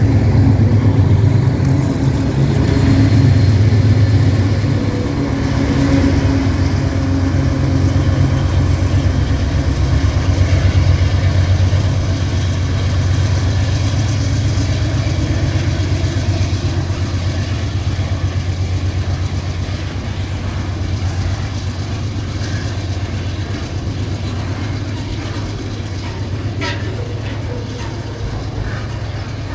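Diesel engine of a GE Dash 9 locomotive passing close by with a strong low drone. The drone fades slowly as the train's freight wagons roll past on the rails.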